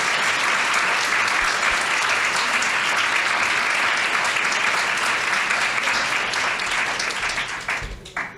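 Audience applauding steadily, the clapping dying away just before the end.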